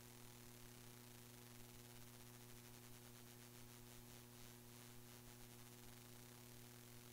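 Near silence: only a faint, steady electrical hum and hiss on a dead audio feed, with no room sound picked up.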